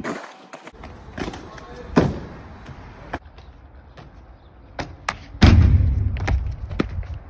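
Thuds of a parkour athlete's feet and body landing on mats and pavement, with lighter taps and scuffs in between. The loudest thud comes about five and a half seconds in and is followed by a short low rumble.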